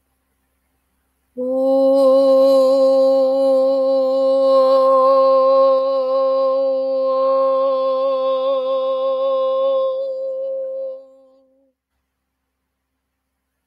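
A woman's voice holding one long sung vowel on a single steady note (vocal toning), starting about a second and a half in and fading out after about ten seconds.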